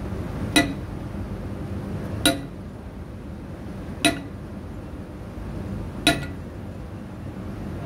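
Hammer blows ringing on the top of a steel bar held upright in a hole in the steel rig floor: four sharp metallic strikes, each with a short ring, about two seconds apart, over a low steady rumble.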